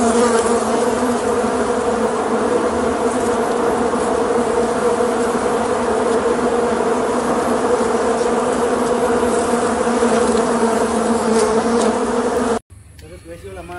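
Swarm of hornets buzzing in a steady, loud drone that cuts off abruptly near the end.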